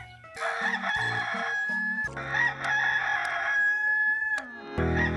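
Rooster crowing, the Hollywood Edge 'Rooster 2 Crow' stock sound effect: a long held cock-a-doodle-doo, then another about two seconds in, and a third starting near the end.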